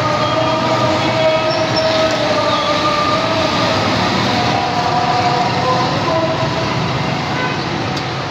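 Egg mal pua deep-frying in a large wok of hot oil: a loud, steady sizzling hiss, with a few held droning tones running through it.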